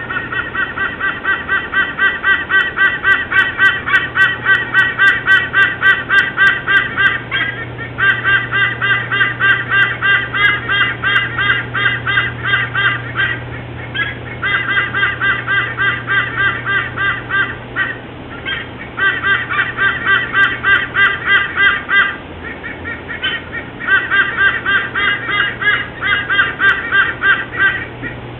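White-bellied sea eagle calling: loud, goose-like honking notes repeated in quick series, in about five bouts broken by short pauses.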